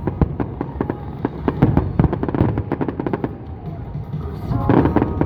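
Fireworks crackling and bursting in rapid succession over loud music. The crackling thins out after about three seconds, and the music comes to the fore near the end.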